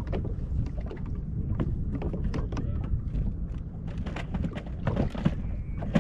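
Low, steady wind rumble on the microphone with scattered light clicks and knocks, and one sharper knock at the very end.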